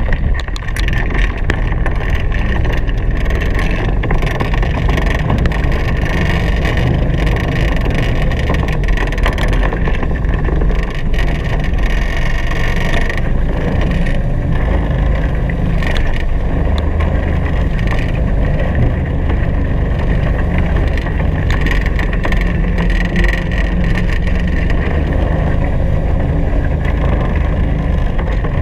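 Steady, loud wind rumble on the microphone mixed with the rush of water along the hulls of a Hobie Cat 16 catamaran under sail.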